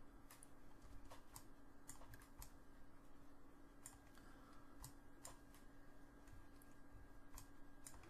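Faint, irregular clicks of a computer mouse and keyboard during CAD work, over a faint steady hum that stops near the end.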